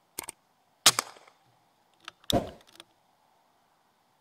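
BSA air rifle shooting: a handful of sharp cracks and clicks, the two loudest about a second and a half apart, the first with a short ringing tail, from the shot and the rifle's action being worked.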